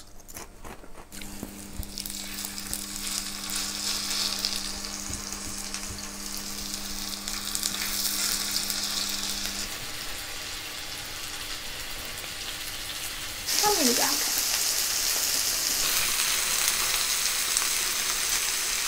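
Meat frying with a steady sizzle, starting about a second in and growing louder, then jumping louder again about thirteen seconds in.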